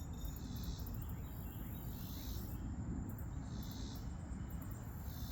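Insects calling outdoors in high-pitched pulses that swell and fade every second or two, over a steady low rumble.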